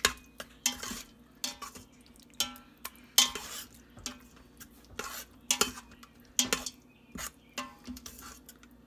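A metal slotted spoon stirring and scraping spiced tomato masala around a stainless steel Instant Pot inner pot during sautéing. The strokes are irregular, roughly one a second, over a faint sizzle.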